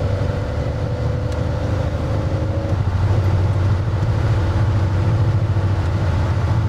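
Car engine and road noise heard from inside the cabin while driving: a steady low drone, with a fainter higher hum that stops about two and a half seconds in.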